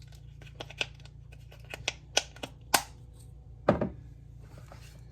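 A utensil stirring a casserole mixture of shredded hash browns, eggs and milk in a baking dish, with irregular clicks and taps against the dish. The loudest knock comes about three and a half seconds in.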